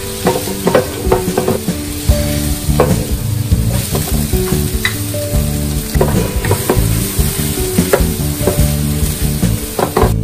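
Crushed garlic and diced onion sizzling in hot oil in a nonstick frying pan, with scattered sharp clicks, over background music.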